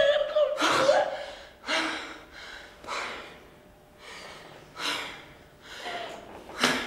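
A woman sobbing: a wailing cry trails off at the start, then gasping, snuffling breaths come about once a second, the sharpest one near the end.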